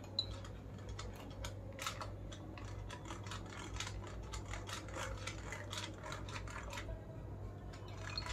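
Hand-pumped plunger whisk spinning in a glass jar of curd and milk, clicking and rattling irregularly a few times a second as it is pushed up and down to mix them gently.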